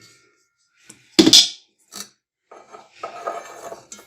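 Kitchen utensils and a cooking pot being handled: one sharp, loud knock a little over a second in, a faint click, then soft scraping and rustling.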